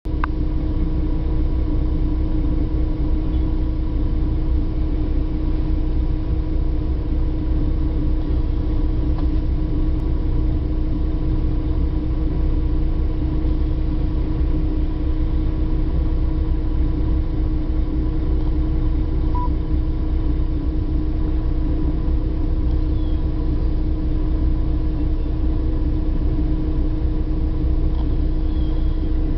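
Steady drone of a moving bus heard from inside the cabin: deep engine and road rumble with a constant hum.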